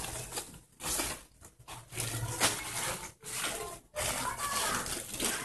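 Plastic packaging crinkling and rustling in uneven bursts with short pauses, as cellophane-wrapped curtain packs and a courier bag are handled.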